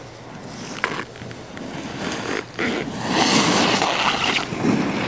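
Hard-boot alpine snowboard sliding and scraping over hard-packed snow close by: a rushing hiss that builds from about two seconds in and is loudest in the second half, with a short click about a second in.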